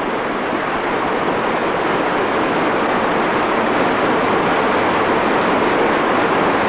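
River water rushing steadily, an even hiss-like roar with no breaks.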